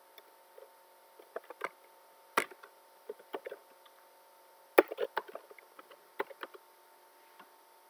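Computer keyboard keys tapped in short, irregular runs of clicks, with two louder clacks about two and a half and five seconds in, over a faint steady hum.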